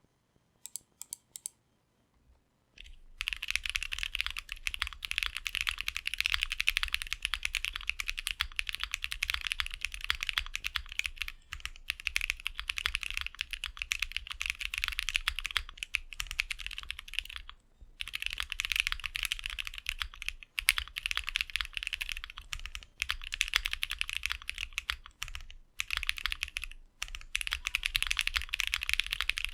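Typing on a Bakeneko 60 custom mechanical keyboard with lubed and filmed AEBoards Snag switches, a POM plate on a gummy O-ring mount, and PBT keycaps. A few single keystrokes come first, then fast continuous typing from about three seconds in, with a few brief pauses.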